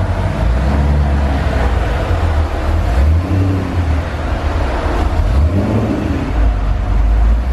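The 2020 Shelby GT500's supercharged 5.2-litre V8 running at a steady road speed, a low exhaust rumble mixed with tyre and road noise, heard from inside the cabin.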